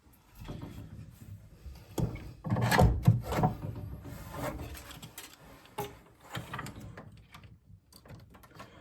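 Hands handling parts and tools: a run of clicks, clunks and rustling, with the loudest knocks about two to three and a half seconds in.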